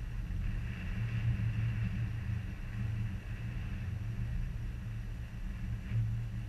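Wind buffeting the camera's microphone: a steady low rumble that swells and eases, with a faint hiss above it.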